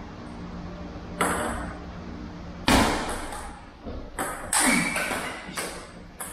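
Table tennis rally: the ball cracks off the players' bats and bounces on the table, about six sharp knocks with a short ring, irregularly spaced, the loudest about a third of the way in.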